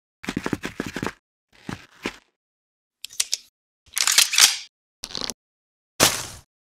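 Added stop-motion sound effects, separate short sounds cut apart by dead silence: a quick run of clicks in the first second, a few short knocks, then the loudest, a noisy burst about four seconds in, and another noisy burst about six seconds in that fades away.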